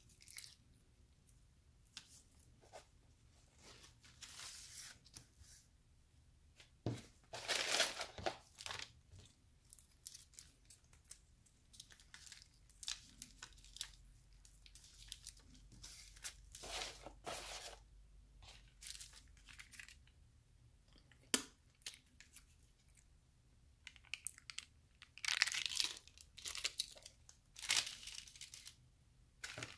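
Small ketchup packets being torn open and squeezed, and the foil lid peeled off a plastic dipping-sauce cup, with paper wrappers crinkling: irregular bursts of tearing and rustling, with one sharp click about two-thirds of the way through.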